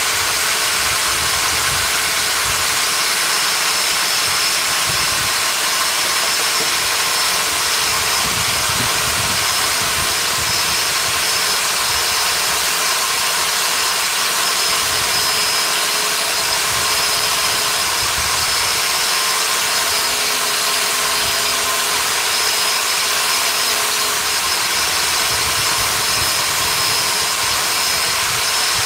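A workshop power tool running steadily, a hiss with a thin high whine held at one pitch and no change in load.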